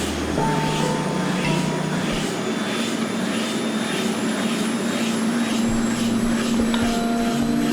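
Helicopter running steadily: a constant engine hum with a regular whooshing pulse about twice a second.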